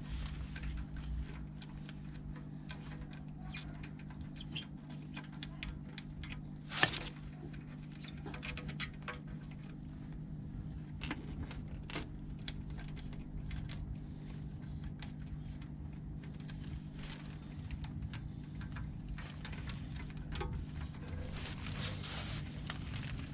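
Small clicks and rustles of wiring and small parts being handled as indicator wires are fed through a motorcycle indicator relocation bracket, over a steady low hum. One sharper click comes about seven seconds in.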